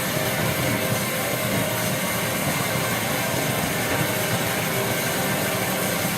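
Played-back track made by piling many innocuous pop songs on top of one another into a single dense, steady wall of noise, like being attached to an aeroplane turbine.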